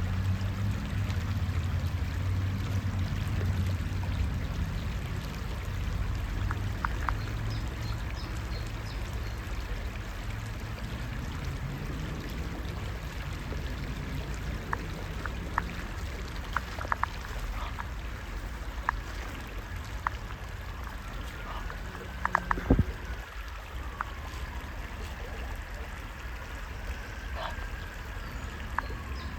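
Creek water trickling and lapping under a low, steady rumble that is strongest in the first few seconds. Small sharp ticks and splashes come through the second half, with one louder one about two-thirds of the way in.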